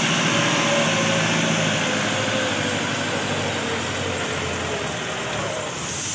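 Tractor front-end loader's diesel engine running as it drives past under load with a raised bucket of crushed stone and climbs a ramp, growing a little fainter as it moves away.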